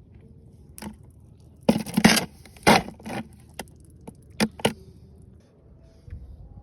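A run of short scraping and rattling noises, loudest about two seconds in, followed by a few sharp clicks.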